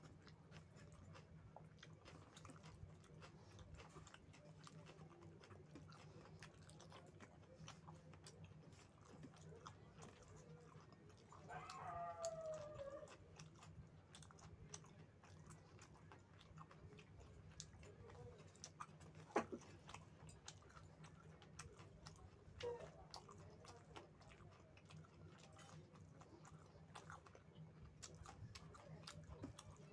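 Faint close-up chewing and wet mouth clicks of someone eating rice with chicken curry, over a low steady hum. About twelve seconds in there is a brief falling pitched call, and a sharp click comes a few seconds later.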